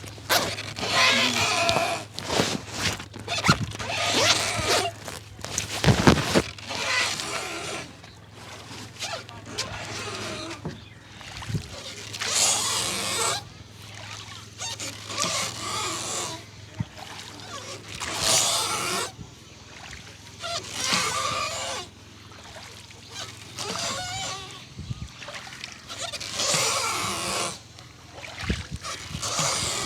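Hands rubbing, kneading and patting a person's head and hair close to the microphone during an intense head massage, in irregular rustling strokes with a few sharper slaps, over a steady low hum.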